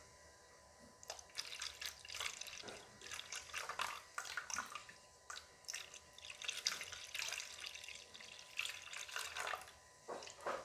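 A plastic spatula stirring thin rice-flour batter in a plastic bowl: irregular wet sloshing and splashing strokes, starting about a second in, as lumps in the batter are broken up.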